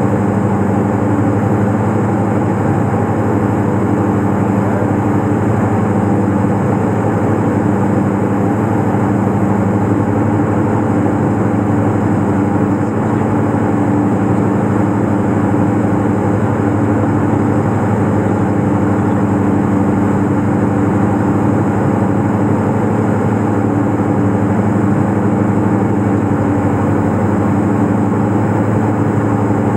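The Diamond DA42's twin engines and propellers drone steadily in the cabin on final approach, a constant low hum that does not change in pitch or level.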